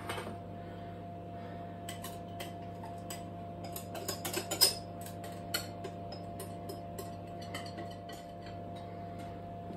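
Light, scattered clicks and taps of a utensil scraping against a glass mixing bowl as the egg-and-syrup mixture is poured out into a saucepan, busiest about four to five seconds in, over a steady low hum.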